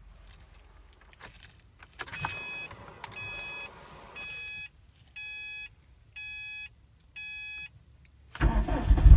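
Subaru WRX STI with its engine off: a few key and ignition clicks, then the car's warning chime sounding repeatedly, followed by four evenly spaced beeps about 0.8 s apart. Near the end the starter cranks and the E85-fuelled turbocharged flat-four fires and revs up.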